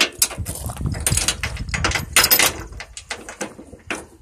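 Heavy steel tie-down chain rattling and clanking as it is pulled and fed along a flatbed trailer's steel side rail, a quick run of metal clinks with the loudest clatter about two seconds in.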